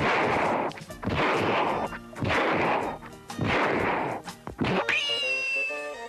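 A man imitating revolver shots with his mouth: about five hissing, blasting 'shots' roughly a second apart, each dying away. Near the end comes a rising whistled whine, like a ricochet.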